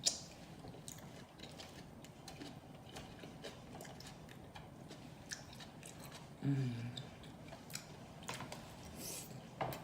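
Close-miked chewing and wet mouth smacking, with many small clicks. A short hummed "mm" comes about six and a half seconds in.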